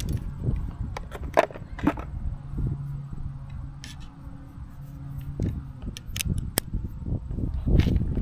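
Clicks, knocks and rattles of action-camera gear and mount parts being handled and lifted out of a hard plastic case, with rustling and rumble from handling. A low steady hum runs through the middle.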